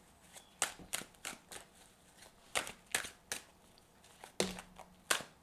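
Tarot cards being shuffled and handled on a table: a run of about eight crisp, separate card snaps and slaps at uneven intervals.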